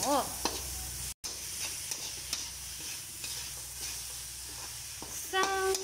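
Mung bean sprouts, cabbage and chayote sizzling as they are stir-fried in a metal wok, with a spatula scraping and clicking against the pan. The sound cuts out for a split second about a second in.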